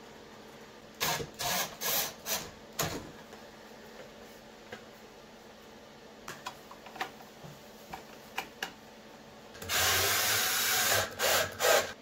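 Hand-tool work on a quartz space heater's plastic housing. About a second in there are five short scraping strokes, then a few light clicks. Near the end comes a loud steady noise lasting about a second and a half, then two short bursts.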